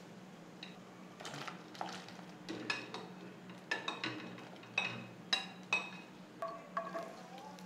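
Slotted spatula tapping and scraping against a plate as chopped vegetables are pushed off it into a wok: about a dozen light, ringing clinks at irregular spacing, starting about a second in.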